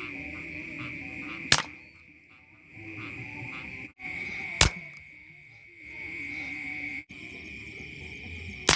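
Three sharp shots from an air rifle, about three seconds apart, over a steady high chirring of night insects.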